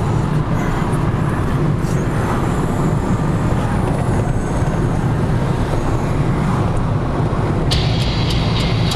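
Steady low rumble of a running vehicle. Near the end a brighter hiss with a run of regular faint ticks starts suddenly.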